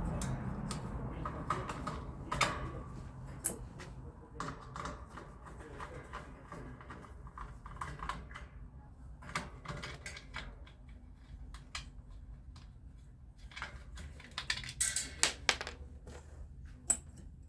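Scattered light clicks and taps of small metal parts, screws and hand tools being handled during a fan teardown, with a quicker cluster of clicks about three-quarters of the way through.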